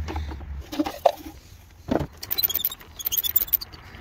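A few knocks as plastic lamp parts are handled, the loudest about two seconds in. Then fast, high-pitched ticking in short runs: the ratchet of a multi-bit screwdriver with a T20 Torx bit working on a parking-lamp screw.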